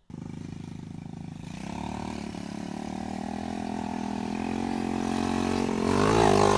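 Quad ATV engine running at a steady pitch and growing louder as it comes closer, then revving up and down near the end.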